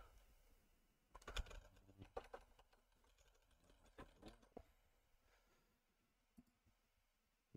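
Faint typing on a computer keyboard in two short runs of keystrokes, then a single click near the end.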